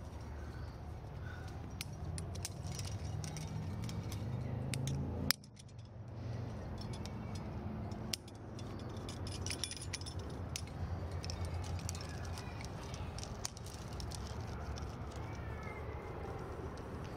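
Climbing hardware, carabiners and cams on a trad rack, clinking and jangling again and again as the climber moves up the crack, over a steady low rumble. A sharp knock comes about five seconds in.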